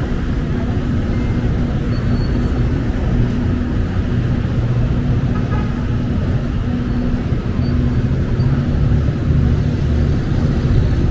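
Street ambience: a steady low rumble of road traffic with a constant engine hum, and faint voices in the background.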